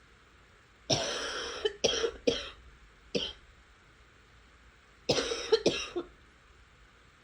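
A person coughing in two fits: a long cough about a second in followed by three shorter ones, then a quick run of three coughs about five seconds in.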